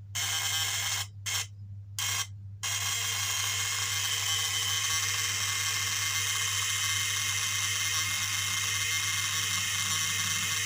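Homemade 12 V DC-to-220 V AC inverter built from a salvaged audio-amplifier transformer, buzzing as it powers an 11 W bulb. It cuts in and out three times in the first couple of seconds as the wire contact is made and broken, then buzzes steadily.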